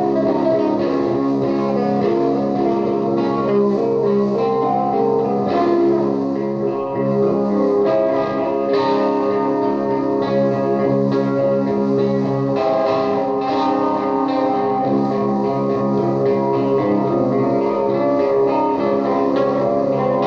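Electric guitar played through an Orange amplifier: a psychedelic looped part of held, layered notes with picked notes over it.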